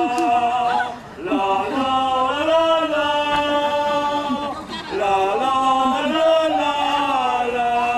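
A voice singing a wordless tune in long, held notes that glide up and down, with short breaths about a second in and near five seconds.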